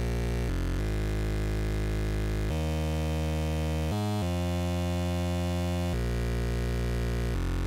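Acid Rain Technology Chainsaw digital oscillator playing a slow sequenced bass line: one buzzy, harmonic-rich voice holding low notes that step to a new pitch every second or two, with two quick passing notes.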